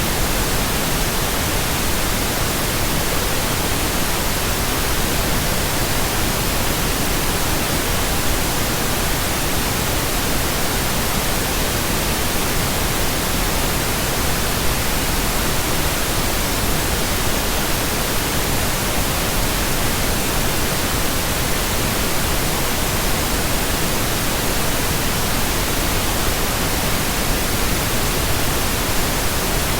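Steady synthetic pink noise: an even hiss that spreads across low and high pitches and does not change in level.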